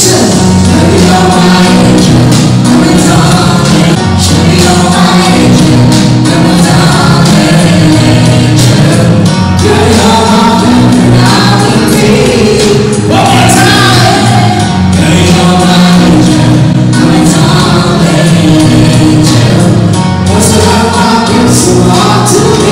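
Live band with singers playing loud, upbeat dance music over a PA system, with a steady bass line.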